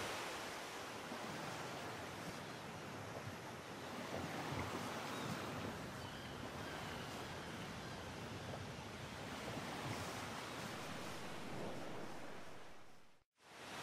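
Steady rush of sea waves and wind. It cuts out briefly near the end and then fades back in.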